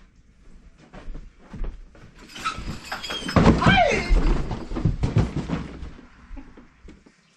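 A series of knocks and thumps, with a dog giving a short whine that glides down in pitch about three and a half seconds in.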